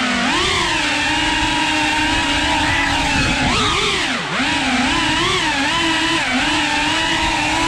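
Tiny whoop FPV drone's small motors and propellers whining, the pitch rising and falling constantly with the throttle. About four seconds in, the pitch and level drop sharply, then climb back.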